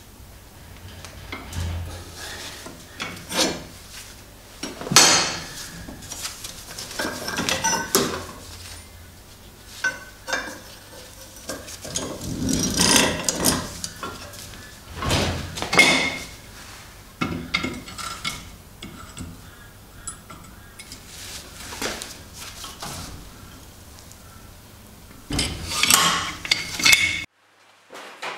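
Steel parts clinking, knocking and scraping against a steel bench vise as they are set in its jaws and handled, in irregular clatters every second or so.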